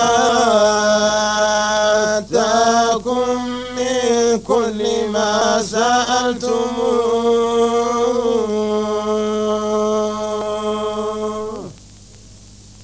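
Quran recitation chanted by a male voice in the Moroccan Filali style, drawn out in long, slowly sliding held notes with brief breaks. The chant stops near the end, leaving a faint steady hum.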